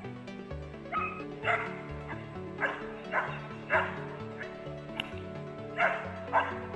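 Young shepherd dog barking sharply at a protection-training helper, about six loud barks coming in quick pairs, over background music.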